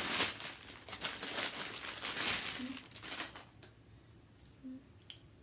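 Clear plastic wrapping crinkling as a hair weave bundle is unwrapped, for about three and a half seconds, then dying down to a few faint rustles.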